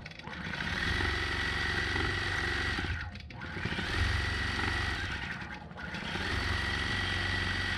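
Longarm quilting machine stitching across a quilt: a rapid needle chatter with a steady whine over it, easing off briefly twice, about three and six seconds in.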